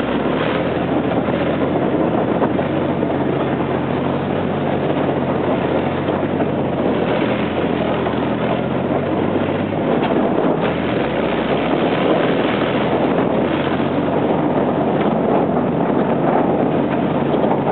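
A tank's engine running steadily under way, heard from on top of the hull, with wind buffeting the microphone.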